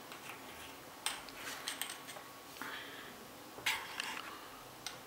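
Light metal clicks and taps from a vape box mod's metal casing and hinged top cap being handled, a handful of sharp clicks spaced roughly a second apart.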